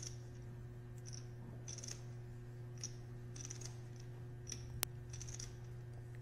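Poker chips clicking together as a player handles them at the table, in short, irregular clacks with one sharper click about three-quarters of the way through. A steady low electrical hum runs underneath.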